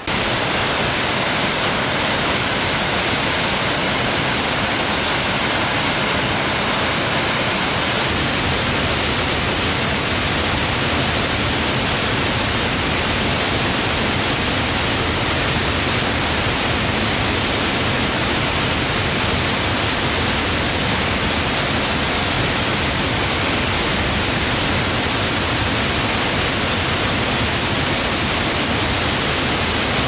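A broad waterfall pouring steadily into its plunge pool: a loud, even rush of falling water that comes in suddenly at the start and holds unchanged throughout.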